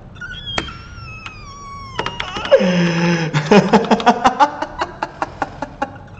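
Computer keyboard typing, a steady run of quick key clicks. From about two and a half seconds in, a man's voice joins in, laughing and vocalising.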